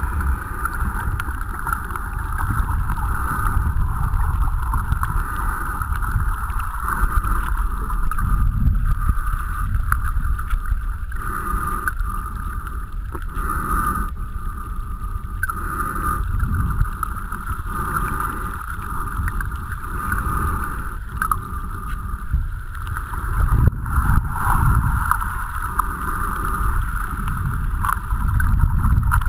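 Muffled underwater sound: a low rumble of moving water and surge that swells and fades irregularly, with a steady higher hiss over it.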